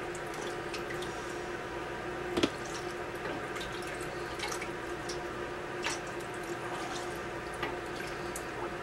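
Broth being ladled through a canning funnel into glass jars of peppers: liquid pouring and dripping, with a few sharp clinks of the ladle against funnel or glass, over a steady hum.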